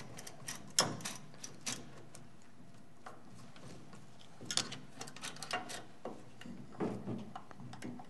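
Light clicks and ticks of hand screwdrivers working screws in a metal equipment case, in short scattered clusters with a lull of about two seconds in the middle.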